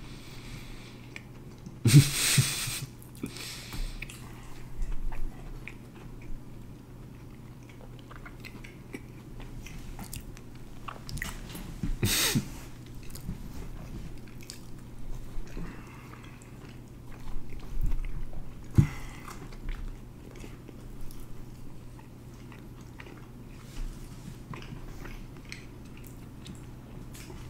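Two people chewing dry Popeye's biscuits with no water, slow, effortful mouth sounds and small wet clicks. A few short louder sounds stand out, about two seconds in and again near the middle.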